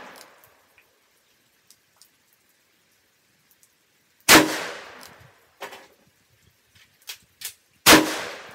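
Smith & Wesson 686 Pro Series .357 Magnum revolver firing two shots about three and a half seconds apart, each a sharp bang with a short fading ring. Fainter, shorter bangs fall between them.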